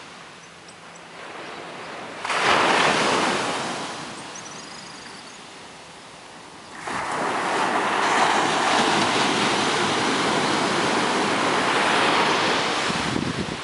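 Ocean surf breaking and washing up a sandy beach, an even rushing noise. It jumps suddenly louder about two seconds in and again about seven seconds in, then holds steady.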